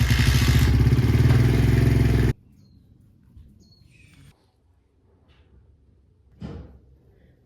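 Honda Ape 50's small single-cylinder four-stroke engine running loudly and steadily for about two seconds, then cutting off abruptly. Faint small clatters follow, with a short knock near the end.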